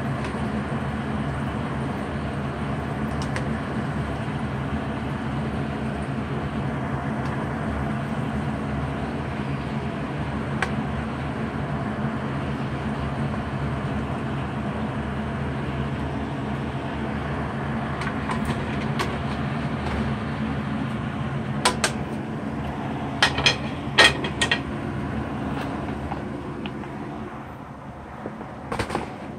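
Potato fries bubbling and sizzling in a pan of hot oil, a steady frying noise. Near the end come several sharp knocks and clatters as the fries are tossed in a plastic colander.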